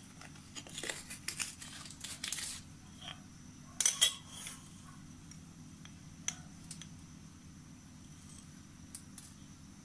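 Packaging being handled close by: rustling and crinkling, then a couple of sharp clicks about four seconds in, followed by a few faint ticks.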